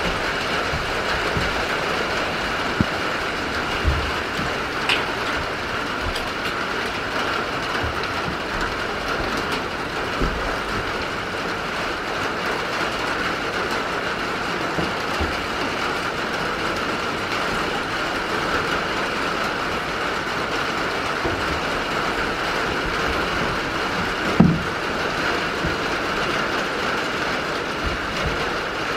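Steady rain heard from inside a wooden goat house: an even hiss, with a few soft thumps, the loudest about twenty-four seconds in.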